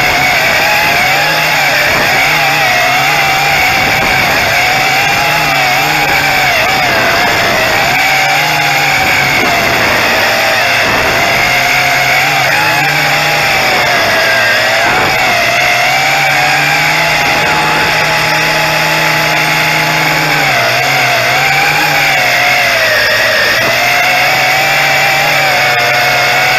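Tarantula X6 quadcopter's motors and propellers whining loudly close to the camera in flight. The pitch wavers up and down continually as the throttle shifts and holds steady for a few seconds a little past the middle.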